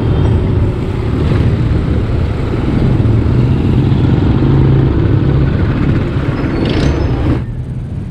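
Wind rumble on the microphone of a handlebar-mounted camera on a moving bicycle, mixed with motorcycle and motorized-tricycle engines in the surrounding traffic. The rumble drops off abruptly near the end.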